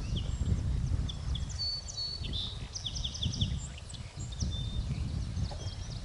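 Wild songbirds chirping and whistling, many short calls and a few held notes, over a loud, irregular low rumble.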